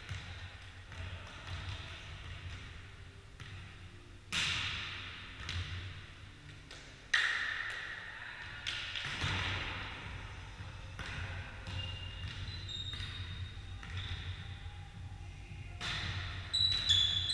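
Volleyball being struck by hands during play in a large echoing hall: a few sharp smacks, the loudest about four and seven seconds in, each followed by reverberation.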